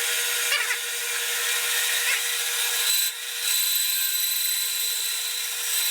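Grizzly G0555 14-inch bandsaw running a carbide blade that had been bent and straightened, cutting through wood with a steady sawing sound and a short drop in level about three seconds in. The blade is cutting well after the repair.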